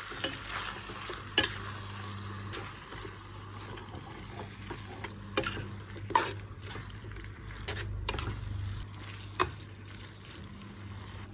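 Noodles cooking in a pan with a steady hiss, stirred with a utensil that clinks sharply against the pan about six times.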